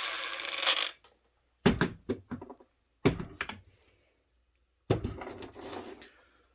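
Ryobi 18V cordless angle grinder with a cut-off wheel finishing its cut through a bolt and falling quiet about a second in, followed by a few scattered knocks and thunks, two or three in quick succession at a time.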